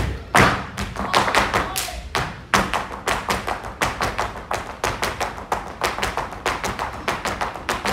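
Flamenco footwork (zapateado): dancers' shoes striking a wooden stage in a quick, steady run of sharp taps and stamps, with flamenco music faintly underneath.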